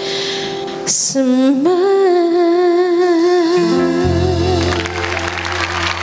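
A ballad sung by a woman over a soft accompaniment. About a second and a half in she holds one long note with vibrato, and a low bass note comes in under it.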